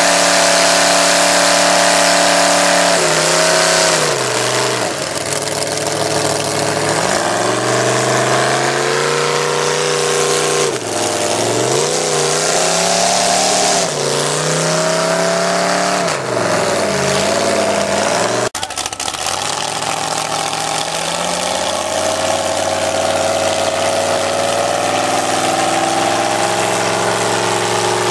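Lifted mud-bogging pickup's engine revving hard as its mud tires spin in the mud pit, its pitch dropping and climbing again several times. In the last third it is held at high revs and slowly climbs.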